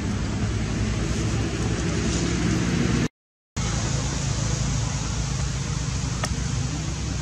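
Steady outdoor background noise: a low rumble with an even hiss above it. The sound cuts out completely for about half a second a little past three seconds in.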